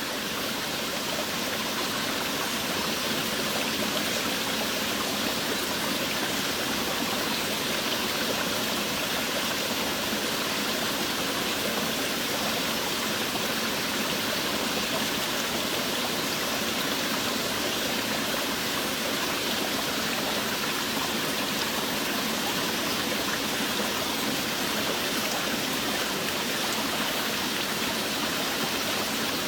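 Steady heavy rain in a jungle, an even, unbroken hiss with no single drops standing out.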